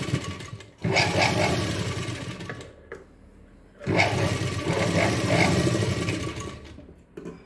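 Sewing machine stitching in two runs, with a short pause about three seconds in; the second run slows to a stop near the end. It is sewing a line of top-stitching along a folded fabric edge.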